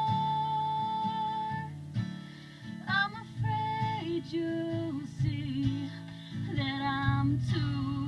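A woman singing a folk-country song to her own acoustic guitar, broadcast live and played through a car radio's speakers. She holds one long note at the start, then sings on over the guitar.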